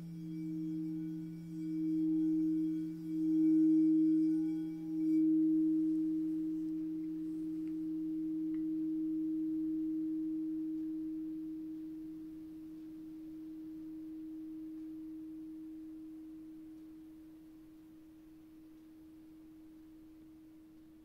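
Singing bowls ringing in two steady low tones that swell and pulse in loudness for the first five seconds or so, then ring on and slowly fade. The higher overtones drop away about five seconds in.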